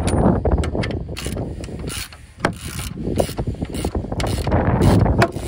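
Hand tools working the 21 mm nut and bolt of a Range Rover L322's rear upper suspension bush: rapid ratcheting clicks and metal clinks in uneven strokes, with a short pause about two seconds in.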